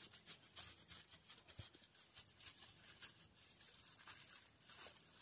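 Faint rustling and scratching of a plastic bag as flour is shaken out of it by hand, in near silence.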